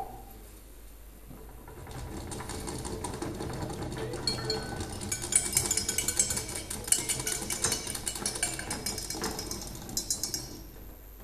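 Kitchen utensils rattled and clinked as a live-performed sound effect: a dense, rapid clatter that builds from about two seconds in, is busiest in the middle and stops just before the end.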